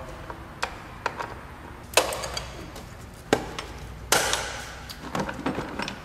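Sharp plastic clicks and knocks, scattered through a few seconds, with the two loudest about two and four seconds in. They come from the plastic air filter housing being unclipped and its lid, with the MAF sensor, worked loose by hand.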